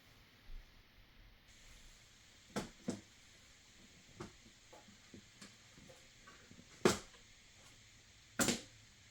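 Hands handling PC cooler parts and packaging: a string of irregular clicks and knocks, the two loudest about seven and eight and a half seconds in, over a low steady hiss.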